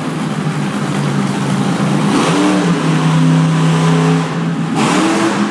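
Monster truck engine revving as the truck drives, loud and steady, its pitch stepping up about two seconds in and rising again near the end.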